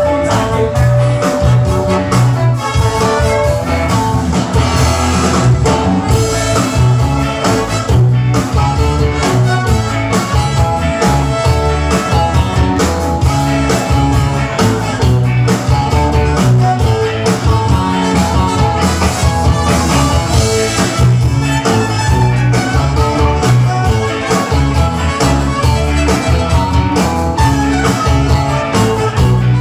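A ska band playing live at full volume: electric guitars over a heavy, steady beat.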